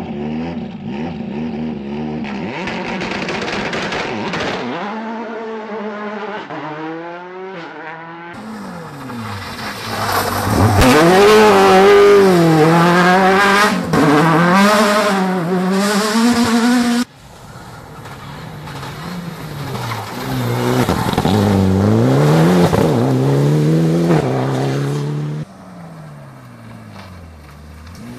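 Rally cars taking a tight hairpin one after another: their engines rev hard, drop off and climb again through the gears. Several separate passes are joined with sudden cuts, and the loudest run is from about 10 to 17 seconds in.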